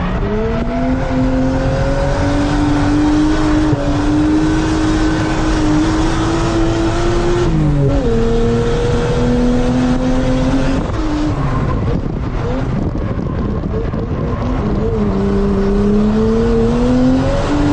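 Nissan R33 Skyline's engine, heard from inside the cabin, held at high revs while drifting without lifting. The revs dip sharply about eight seconds in and again near the end, climbing back each time.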